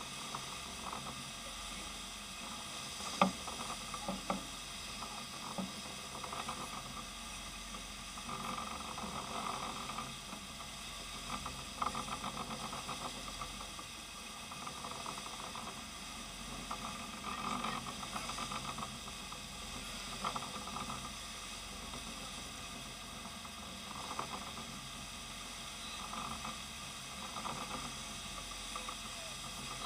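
Steady hissing rush of a sportfishing boat underway, its wake churning white water behind the stern, with a sharp knock about three seconds in and a smaller one about a second later.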